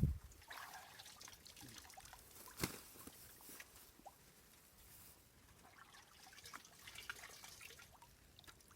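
Faint drips and trickles of water, with a single sharp knock about two and a half seconds in.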